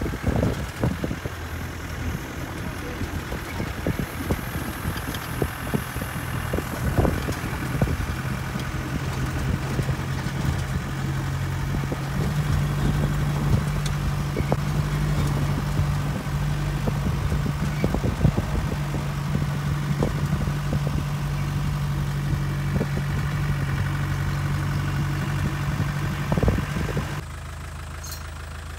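Engine of an open safari vehicle running as it drives along a dirt track, with many short knocks and rattles from the jolting body. About a second before the end it drops to a quieter idle as the vehicle stops.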